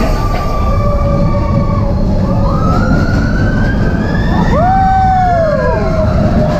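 Roller coaster train rumbling hard along its track, with riders' long screams rising and falling in pitch over it. One loud arching scream comes about two-thirds of the way in.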